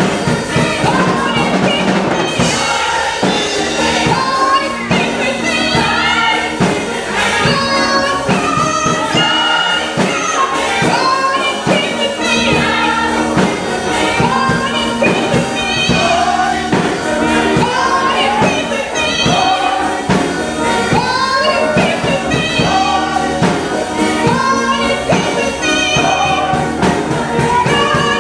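Gospel choir singing in full voice with a lead singer on a microphone, over instrumental accompaniment with a steady beat.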